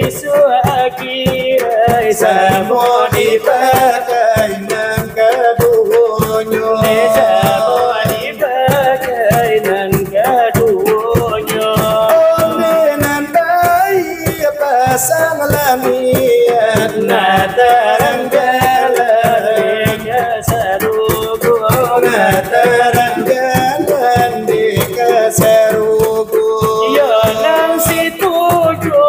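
Salawat dulang: men singing a Minangkabau devotional chant in a winding melody over fast, steady beating of fingers on large brass trays (dulang).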